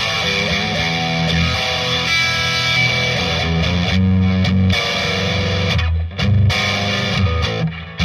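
Electric guitar played through a Marshall DSL40C valve combo on its green crunch channel, pushed into tube saturation by a Timmy overdrive pedal and heard through a Celestion Cream Back speaker, close-miked: distorted, ringing chords and single notes, with a short break about six seconds in.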